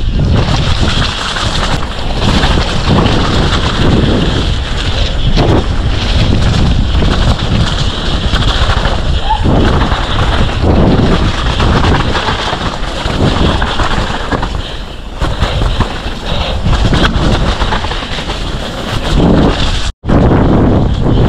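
Loud wind buffeting the microphone, rumbling and gusting unevenly, with a split-second dropout near the end.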